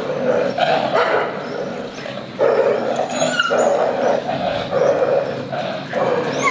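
Several dogs play-fighting, giving a string of short yips and barks that get louder about two and a half seconds in.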